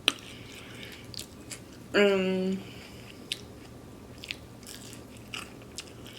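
Close-up eating sounds: chewing and biting with scattered wet clicks of the mouth. A short voiced sound comes about two seconds in.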